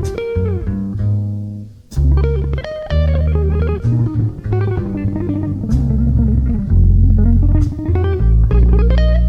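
Instrumental music: a bass guitar playing steady low notes under a guitar melody that bends and wavers in pitch, with a brief drop-out about two seconds in.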